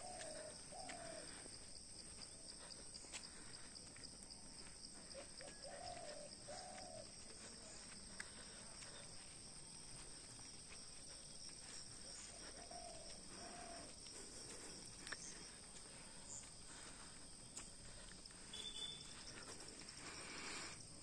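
Woodland ambience: a steady high insect drone, with a bird's two-note call repeated three times, about six seconds apart, and faint footsteps on brick paving.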